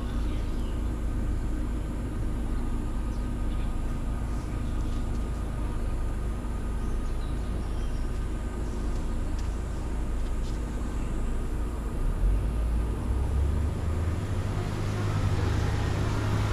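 Steady low traffic rumble. From about twelve seconds in, a vehicle draws near: a low hum grows louder and a hiss builds near the end.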